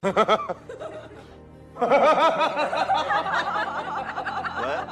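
Rapid chuckling laughter over music: a short burst at the start, then a longer, denser run of laughter from about two seconds in.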